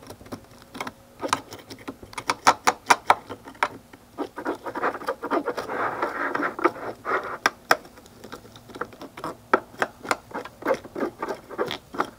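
Hand fish scaler scraping the scales off a sunfish on a fillet board: a quick, irregular run of short rasping strokes, thickest in the middle.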